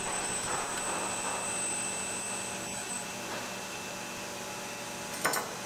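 Steady whirring hum of a large-format robotic-arm 3D printer extruding a bead of plastic. A thin high whine in the hum stops about halfway through, and there is one short sharp noise near the end.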